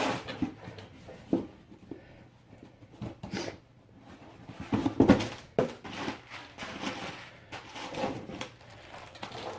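Handling noises as a new wheel hub assembly is taken out of its box: scattered knocks, clunks and rustles, the loudest about five seconds in.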